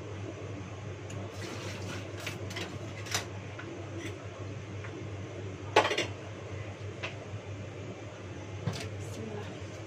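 Kitchenware clinking and knocking on the counter: light clicks in the first few seconds, a sharp loud knock about six seconds in, and another knock near the end, over a steady low hum.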